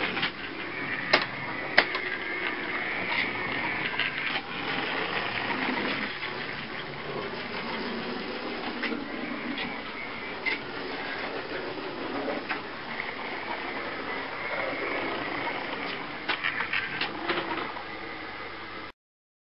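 Small electric motors of model trolleybuses whirring steadily as they run on a layout, with scattered sharp clicks and ticks. It stops abruptly just before the end.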